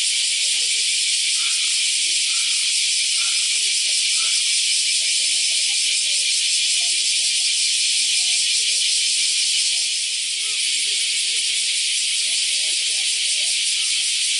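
Many bees buzzing over a clover field, their faint wavering hums under a loud, steady high-pitched hiss.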